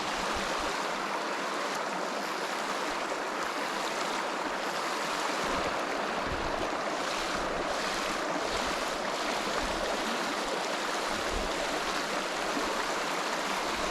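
Small river flowing: a steady rush of running water.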